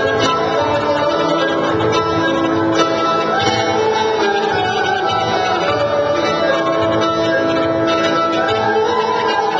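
Turkish folk dance music of the Teke region, a held instrumental melody over a steady dance rhythm.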